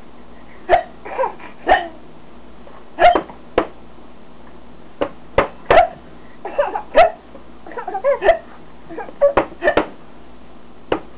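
A person making fake hiccups for a baby: about a dozen short, sharp gulping hiccup sounds at irregular intervals. Short bursts of baby laughter and squeals fall between them.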